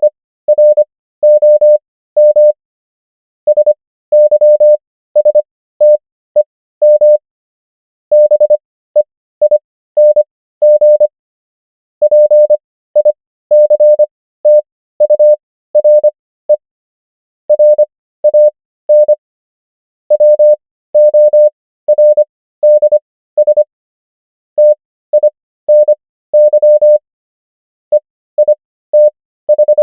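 Morse code practice tone: a single steady beep keyed into short and long elements, spelling out common English words. Characters are sent at 25 words per minute, with longer Farnsworth gaps between characters and words that bring the overall pace to 15 words per minute.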